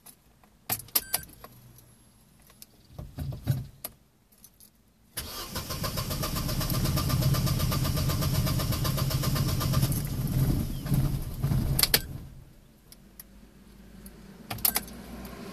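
Opel Corsa C's engine cranking on the starter motor for about seven seconds without catching, with a few clicks of the key in the ignition before it and a sharp click as the key is released. This is a cold-start failure logged as code P0170; the cause turned out to be a leaking hose in the fuel pump's reservoir that starved fuel pressure.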